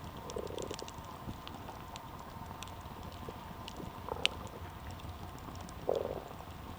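Wood campfire burning, crackling with scattered small pops over a low hiss, and one sharper pop about four seconds in.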